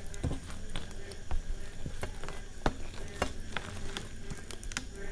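Fingers mixing and gathering soft, wet khichuri on a stainless steel plate: irregular wet squishing with many small sharp clicks.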